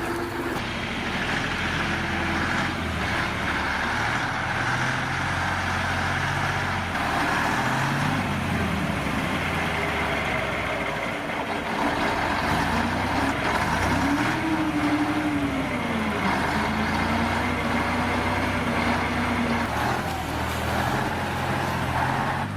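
Heavy vehicle's diesel engine running and revving up and down under load, its pitch changing again and again, over a steady hiss. One clear rise and fall in engine pitch comes about two thirds of the way through.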